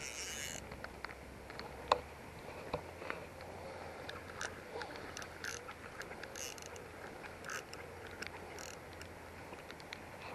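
Soft, scattered clicks and brief rustles of a fishing reel and rod being handled while a hooked fish is played in.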